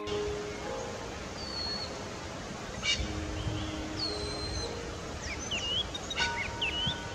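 Outdoor ambience with a steady hiss, small birds chirping now and then in short whistled notes, and soft background music with a few held notes. A short click comes about three seconds in and again near the end.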